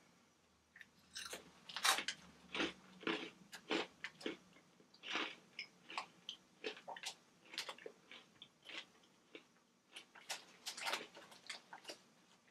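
Crunchy chewing of Flamin' Hot Cheetos: a run of irregular dry crunches, loudest about two seconds in.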